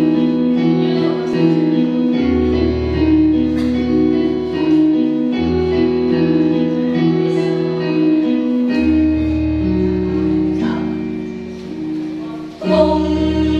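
Music for a Janger choir piece: long held chords over a low bass note that changes every three seconds or so, with singing. Near the end it dips briefly and comes back in louder.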